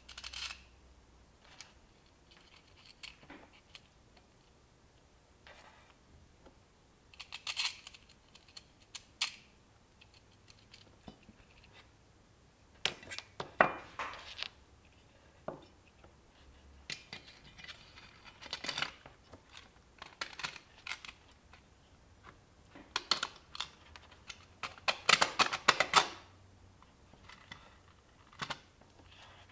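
Small hardware being handled on a tabletop: scattered clicks, taps and short scrapes of metal standoffs, screws, a hex key and a circuit-board stack against a black aluminum case. There are two denser clatters, one about halfway through and a longer one near the end.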